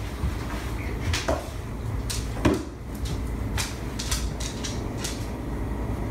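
Handling noise from a phone held up close to a cat: a low steady rumble with scattered clicks and rubs.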